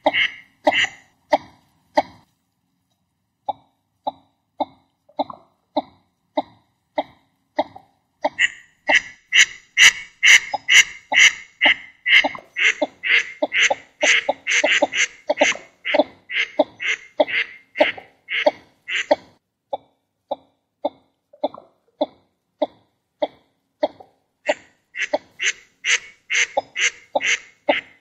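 Northern shoveler duck calls: a long run of short, clipped calls repeated about two to three a second. There is a brief pause about two seconds in, and the calls grow louder and denser through the middle and again near the end.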